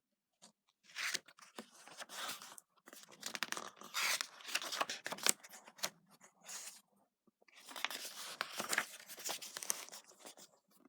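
Paper rustling and crinkling in three bursts of a few seconds each, a picture book being handled and its pages opened and turned.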